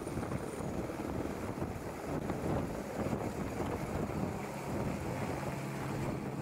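Light single-engine helicopter lifting off and climbing away overhead, with a steady chop of rotor and engine noise. A low steady hum joins in about two-thirds of the way through.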